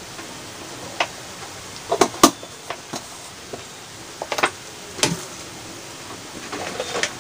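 Scattered light clicks and knocks of kitchen utensils, about eight in all and some in quick pairs, over a steady low hiss of the pan on the stove.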